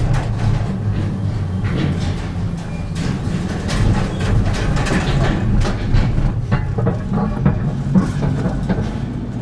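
Car-cabin rumble of engine and tyres rolling slowly along the car-carrier wagons of a shuttle train and off onto the road, with scattered knocks as the wheels cross the wagon deck plates and joints.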